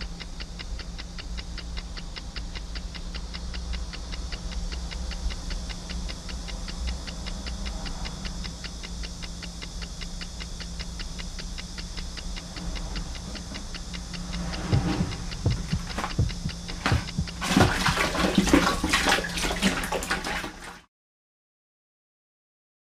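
A mouse scrabbling and knocking about on a bucket trap's board and rolled paper tube, with irregular scratches and knocks in the second half. Under it is a steady low hum and a fast, even ticking, and the sound cuts off suddenly near the end.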